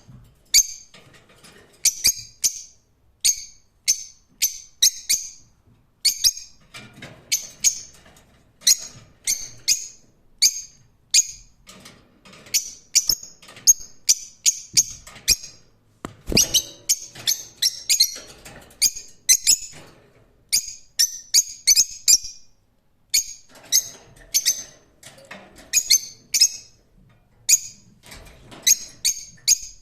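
Lovebirds chirping: a run of short, sharp, high-pitched calls, often several in quick succession, with brief pauses between the clusters.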